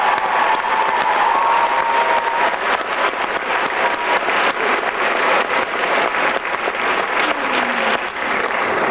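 Theatre audience applauding steadily: dense, continuous hand clapping from a large crowd.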